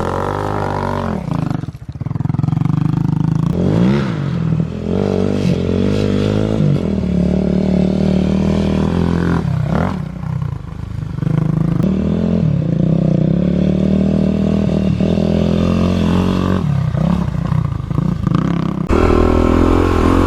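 Kawasaki KLX351 dirt bike's single-cylinder four-stroke engine, through an aftermarket exhaust, revving up and down as it is ridden over jumps. The throttle drops off briefly about two seconds in and again around the middle before picking back up.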